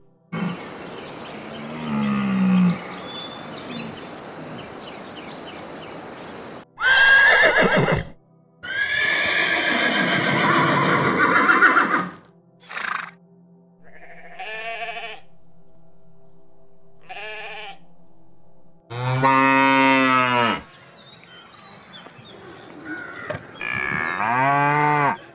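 A run of animal sounds: rushing, splashing river water for the first several seconds, a horse's whinny from about nine to twelve seconds in, then two long cow moos near the end, the last one rising and falling.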